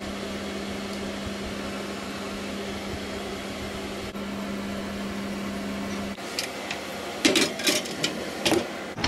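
Steady electric fan hum with a low tone, cutting off about six seconds in. Then a few sharp metal clicks and clatters as a wire grill rack and pan are slid back into an oven.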